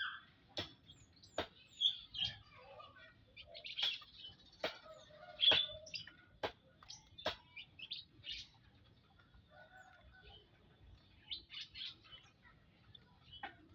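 A group of munias (emprit) chirping with many short, high calls that overlap, busiest in the first half. Sharp clicks cut in now and then, several times in the first eight seconds and once near the end.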